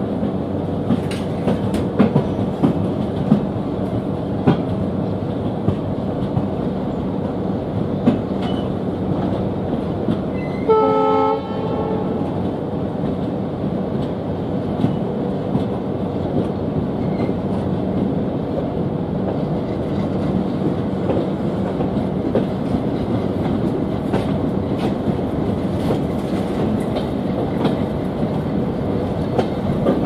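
Passenger train running at speed, a steady rumble with wheels clicking over rail joints, heard from an open coach door. The ALCO diesel locomotive's horn sounds once, briefly, about eleven seconds in.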